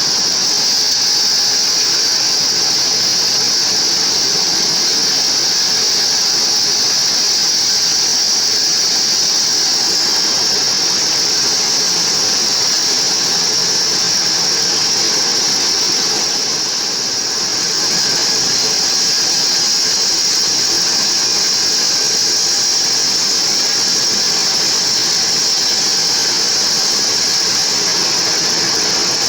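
Bandsaw sawmill ripping mahogany into thin boards: a steady, loud, high-pitched hiss of the blade running through the wood, easing briefly a little past halfway.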